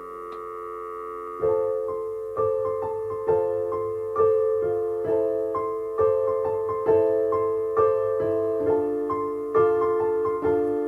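Piano playing an instrumental passage of a song. A held chord fades for about a second and a half, then notes and chords are struck in a steady pulse a little under once a second, with a few quicker notes in between toward the end.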